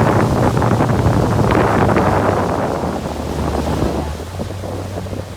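Motorboat running, its engine a steady low hum under wind buffeting the microphone and water rushing past the hull. The wind and water noise eases off after about four seconds.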